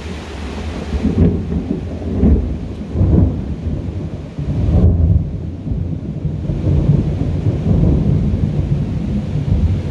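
Thunder rumbling in several low, rolling swells over the steady hiss of rain.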